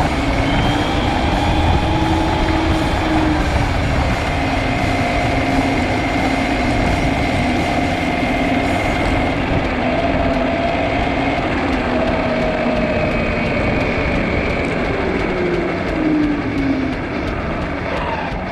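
Road vehicle noise: a steady traffic rumble with engine tones that drift slowly up and down in pitch.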